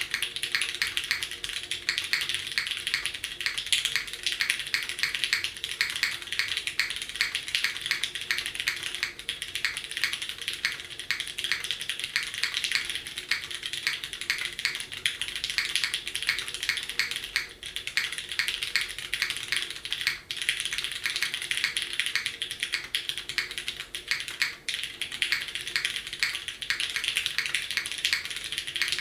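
Mechanical keyboard being typed on quickly and continuously: Cherry MX Purple switches on an aluminum plate in a Bakeneko case with GMK keycaps, a dense stream of crisp keystrokes.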